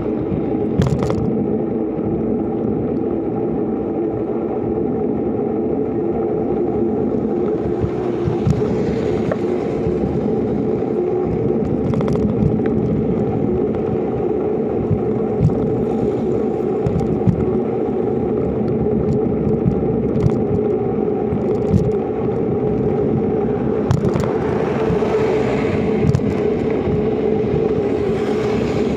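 Steady rolling noise of a knobby bicycle tyre on a concrete road, with sharp knocks now and then as it rides over cracks and bumps. A passing vehicle swells in briefly near the end.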